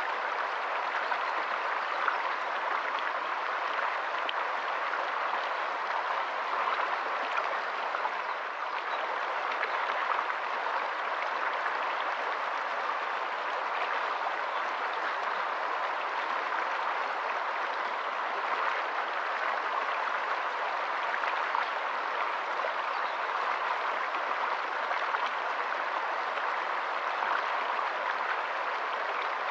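Shallow rocky stream flowing over stones in small riffles: a steady, even rush of running water.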